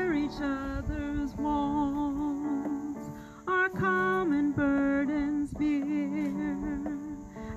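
A woman singing, holding long notes with a slight waver, over instrumental accompaniment.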